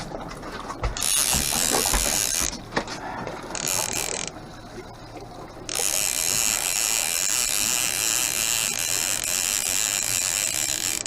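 Fishing reel ratcheting in long buzzing spells with short pauses, as a hooked salmon is played on the line.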